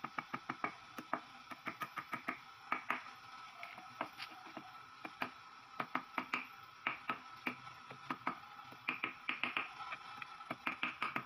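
Ball-peen hammer tapping on a steel socket used as a drift, driving a ball bearing into the bearing eye of a Kawasaki KLX150 aluminium suspension linkage. The strikes are light, quick and metallic-ringing, several a second, in runs with short pauses between them.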